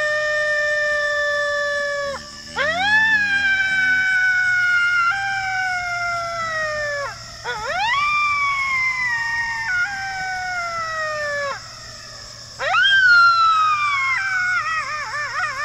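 A series of long coyote-style howls, each rising quickly and then sliding slowly down in pitch; four are heard, the first already under way, and the last breaks into a quavering warble near the end.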